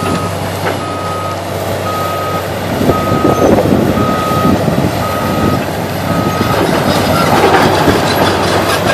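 Excavator's travel alarm beeping about once a second over its running diesel engine, the sign that the machine is tracking. The beeping stops about two-thirds of the way in, and louder mechanical noise from the machine follows.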